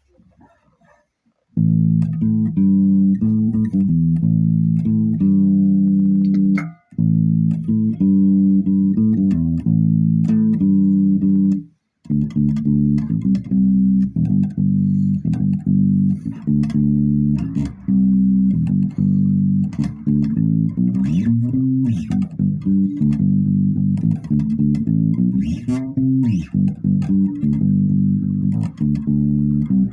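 Electric bass played through a Laney LX65R guitar amplifier with both pickup volumes up, for a classic-rock tone. A riff starts about a second and a half in, breaks off briefly twice, then runs on as continuous playing.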